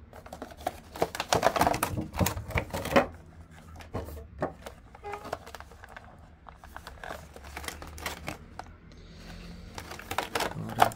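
Cardboard box and plastic packaging of an action figure being handled and opened. A quick run of clicks and taps comes in the first few seconds, followed by scattered knocks and rustles.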